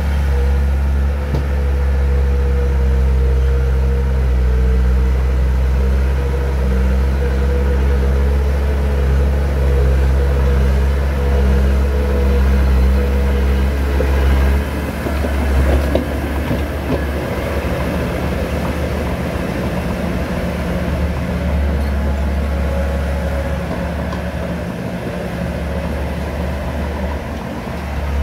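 Engine running steadily with a deep, even hum; its note shifts slightly about halfway through.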